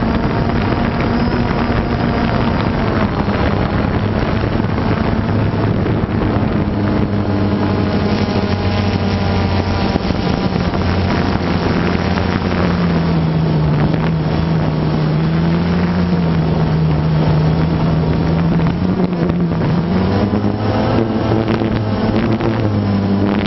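Multirotor drone's motors and propellers buzzing steadily, heard on the drone's own microphone. The hum sinks lower for several seconds past the middle as the motors slow, then rises again near the end.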